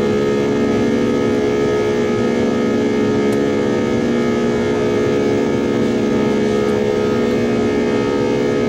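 Jet airliner cabin noise from a four-engine jet in flight: a steady engine drone and rush of air, with a hum of several steady engine tones.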